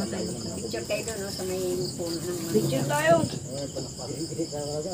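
Crickets chirping steadily in a continuous high trill, with people's voices talking in the background.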